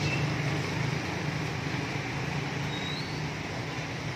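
Street traffic on a wet road: vehicle engines running under a steady low hum, with an even wash of road noise.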